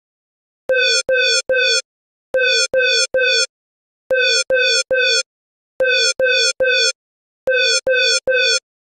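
Electronic emergency warning alarm: buzzy synthetic beeps in groups of three, each beep dropping slightly in pitch, the triple repeating about every 1.7 seconds, five times.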